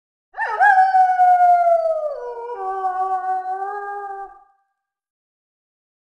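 A single long wolf howl. It swoops up at the start and slides slowly down, then breaks to a lower pitch about two seconds in and dies away after about four seconds.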